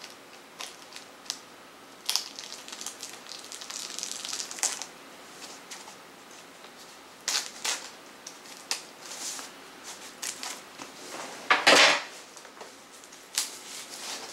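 Loose plastic wrapping on a boxed CD set being opened and slipped off, crinkling and crackling in irregular bursts, with the loudest rustle near the end.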